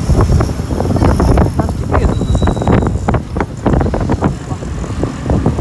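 Wind buffeting the microphone in uneven gusts over a low rumble of passing vehicles.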